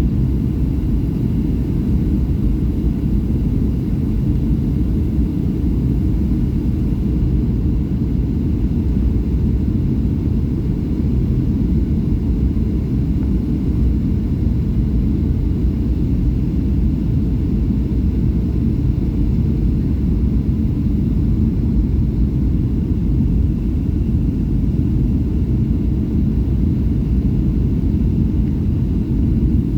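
Steady low rumble of engine and airflow noise heard inside the cabin of a Boeing 757-200 with Rolls-Royce RB211 engines in flight.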